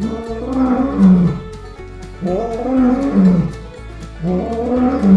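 Three long, pitched animal calls, each about a second and a half, that rise and then fall away. Background music with a steady beat plays under them.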